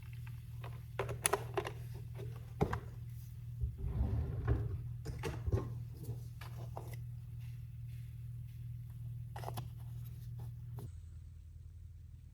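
Scattered light clicks and knocks of objects being handled, over a steady low hum.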